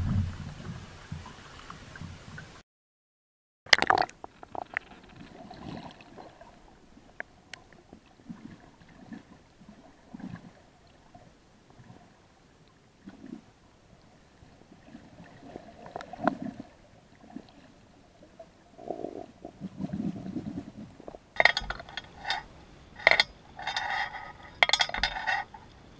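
A freediver's duck dive splashes at the surface at the start. Then comes underwater sound of the descent: a sharp knock about four seconds in, scattered gurgles and soft knocks, and a run of metallic clinks and rattles in the last few seconds as the bottom plate is reached.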